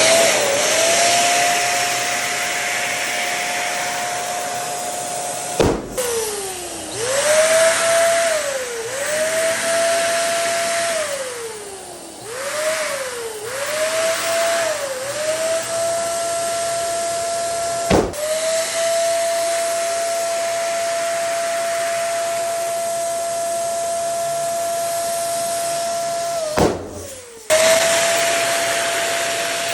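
Electric balloon pump whining steadily as it blows air, its motor winding down and spinning back up several times. Three sharp balloon pops cut through: about six seconds in, midway, and a few seconds before the end.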